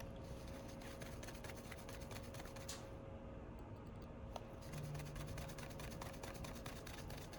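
Faint, rapid little clicks of a precision screwdriver turning the pentalobe screws back into an iPhone 12, over a faint steady hum.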